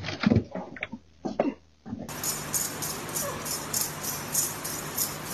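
A dog and a cat clash, with a few loud, sudden animal cries. About two seconds in, this gives way to background music with a quick, steady beat.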